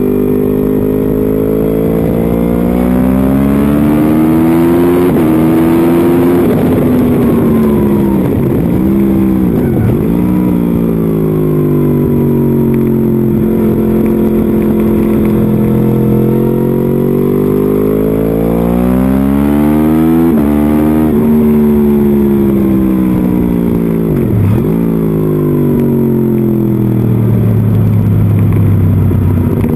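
Motorcycle engine heard from the bike itself at track speed, its pitch climbing hard under acceleration with sharp breaks at gear changes, then falling away twice as it slows for corners, with quick dips in revs on the way down. Wind noise on the microphone sits under the engine.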